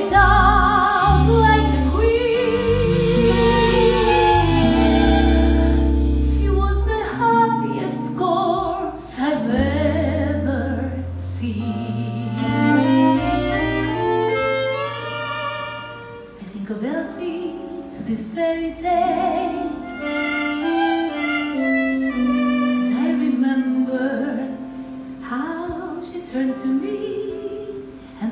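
Stage music: a singer holding long notes with vibrato over orchestral backing, with a heavy bass line for roughly the first seven seconds and lighter accompaniment after.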